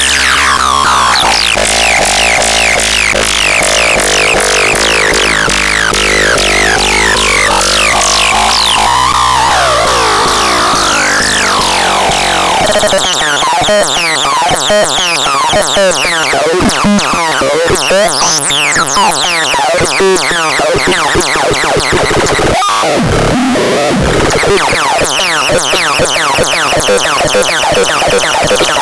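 Electronic synthesizer sounds. For the first twelve seconds or so, tones slide up and down over a steady low drone. After that the sound turns into fast, stuttering, glitchy clicks and chirps.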